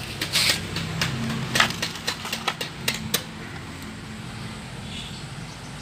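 Hand tools clinking and knocking against metal: a run of sharp clicks in the first three seconds, then fewer, over a low steady hum.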